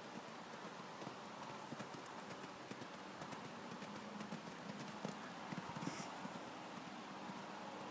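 Hoofbeats of a pony cantering on soft arena footing, a quick irregular series of dull thuds that grows loudest about five to six seconds in as it passes closest.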